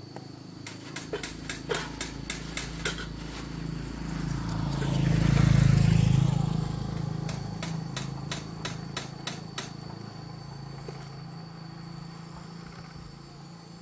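A motor vehicle passing, its engine hum rising to its loudest about halfway through and then fading. Runs of quick clicks or taps come before and after it.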